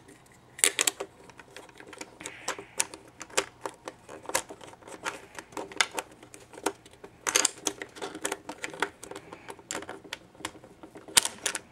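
Plastic pieces of a YJ Axis Cube clicking and clacking irregularly as an edge piece is worked and pushed back into the half-assembled puzzle. The edges are a stiff fit and hard to push in.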